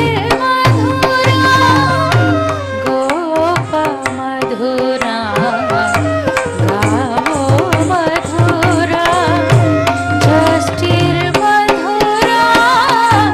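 Live Odissi classical music: a mardala drum beats a steady rhythmic pattern under a melody line that bends and slides in pitch, with many sharp percussive strikes.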